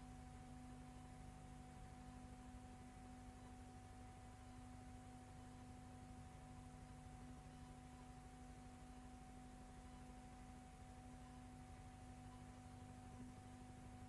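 Near silence: a faint steady hum of a few constant tones over low hiss, with nothing else.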